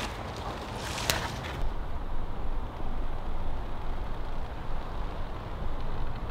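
A little crackle of dry sticks being handled, with one sharp click about a second in, then a steady low rumble with no distinct events.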